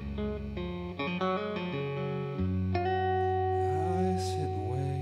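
Acoustic guitar played solo in a song: a run of picked notes and chords, then a chord struck a little before three seconds in and left ringing.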